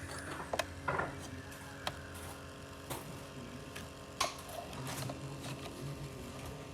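Coffee maker running: a steady hum with scattered clicks and knocks.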